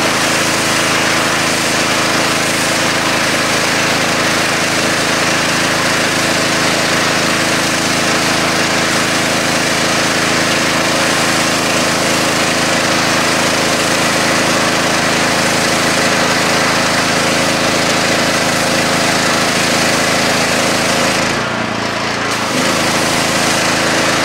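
Small-engine pressure washer running steadily while the jet from the wand hisses across wet asphalt; near the end the spray briefly stops as the trigger is let go, and the engine keeps running.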